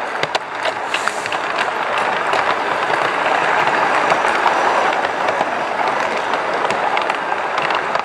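Garden-scale model train rolling along the track, heard from a wagon riding directly behind its live steam locomotive: a steady rushing rattle of small wheels on rail, with scattered clicks.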